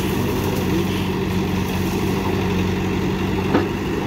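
JCB backhoe loader's diesel engine running steadily under hydraulic load as the backhoe bucket digs into hard, rocky ground. There is one sharp knock about three and a half seconds in.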